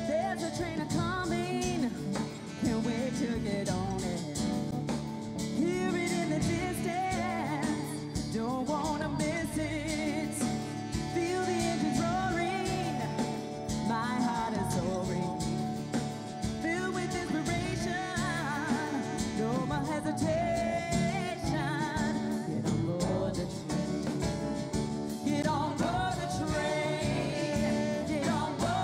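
A live band performing a song: a woman sings lead with a wavering vibrato over acoustic guitar and a drum kit.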